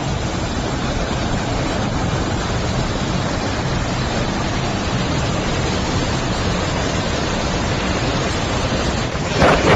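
Typhoon-force wind and driving heavy rain: a steady, loud rushing noise with no let-up, and a brief louder surge near the end.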